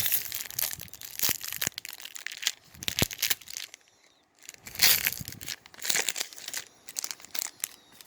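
Foil wrapper of a Pokémon trading card booster pack being torn open and crinkled: a run of sharp crackles, with a short pause about halfway through.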